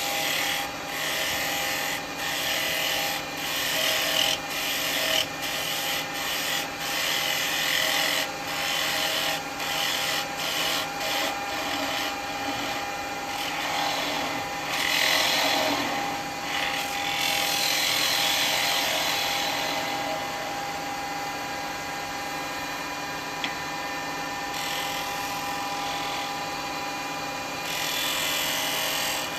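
Wood lathe running with a steady motor whine while a tool is worked against the spinning bowl. For the first twelve seconds or so it comes in quick short strokes, then in longer continuous passes.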